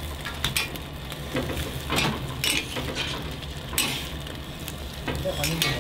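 Two metal spatulas scraping and clicking on a flat steel griddle while a rolled egg omelette is folded, in about five separate strokes over a steady low hum.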